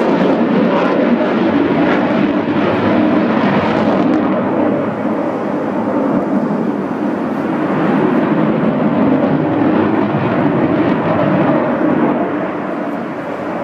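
Sukhoi Su-35 fighter jet's twin afterburning turbofan engines in a display flight: loud, steady jet noise. The hissing top end fades about four seconds in, and the sound eases off a little near the end.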